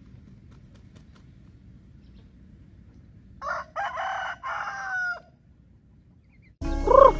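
A rooster crows once, starting about three and a half seconds in and lasting under two seconds, with a falling tail at the end. Near the end a louder stretch begins with a chicken cluck.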